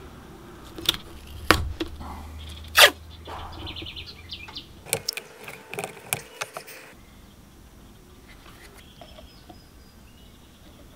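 Blue masking tape being pressed and rubbed down by hand on a wooden surface: sharp crackles and taps, the loudest about three seconds in, coming thick and fast until about seven seconds in. After that it is quieter, with faint short chirps in the background.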